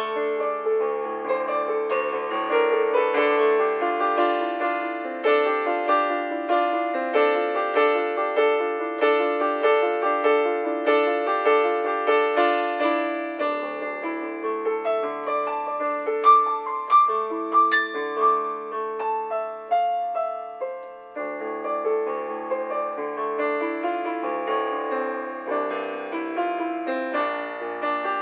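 Solo piano music played back from music notation software: a busy stream of notes over a lower line, thinning briefly about two-thirds of the way through.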